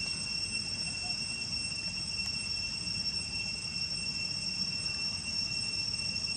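Insects droning steadily at a high pitch in the trees, over a low rumble.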